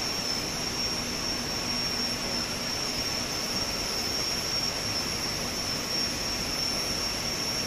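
Steady machine-room noise of the CMS detector cavern: ventilation and electronics-rack cooling fans, an even rushing with a high, steady whine over it.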